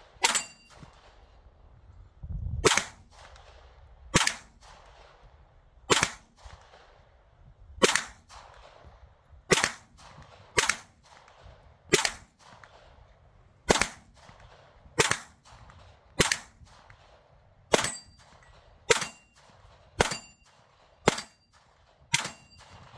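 CZ Scorpion 9mm fired in steady single shots, about sixteen in all, a second or so apart with a few longer pauses. Several shots are followed by a short high ring of a steel target being hit.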